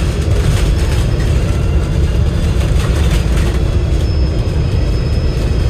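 Interior noise of an Alexander Dennis Enviro500 MMC double-decker bus running, with a Cummins L9 diesel engine and Voith automatic gearbox: a steady low rumble with a faint high-pitched whine on top.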